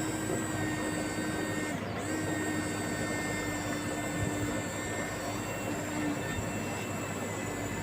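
Small rotary tool motor running at a steady high speed, its pitch dipping briefly about two seconds in.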